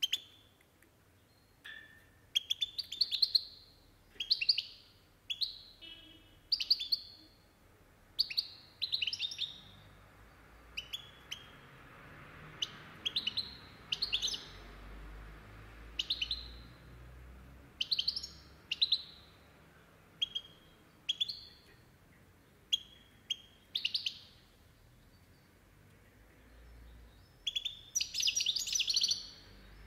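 Caged European goldfinch twittering in short, high chirpy phrases, about one a second. It falls quiet for a few seconds, then gives a longer, denser burst of twittering near the end.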